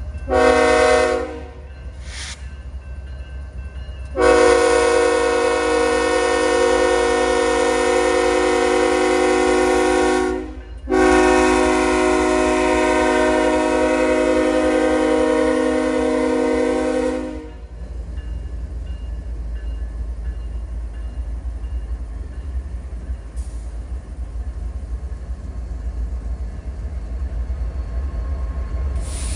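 Diesel freight locomotive's multi-chime air horn sounding a short blast, a brief toot, then two long blasts of about six seconds each. After the horn stops, the locomotives and loaded hopper cars keep rolling past with a steady low rumble.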